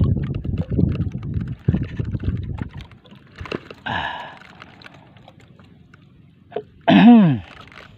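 Clicks and knocks of handling aboard a small wooden outrigger boat over a low rumble of water and wind for about three seconds, then a short pitched sound about four seconds in. Near the end comes the loudest sound, about half a second long, whose pitch rises briefly then falls.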